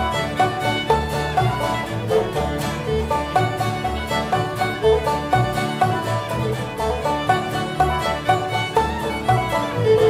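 Old-time string band of fiddle, banjo, upright bass and acoustic guitar playing a fiddle tune at a steady, even beat, with the fiddle carrying the melody over the banjo and the thumping bass and guitar rhythm.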